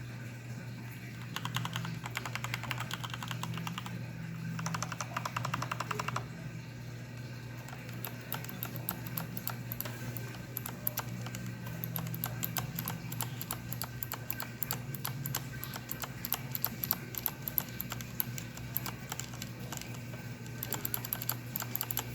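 Keys of a Corsair K65 mechanical keyboard with Cherry MX Red switches pressed over and over, with very fast runs of key presses near the start. The keys give a sharp clicking, ticking noise that these linear Red switches should not make; the owner says they should be nowhere near this loud or clicky, which points to faulty switches.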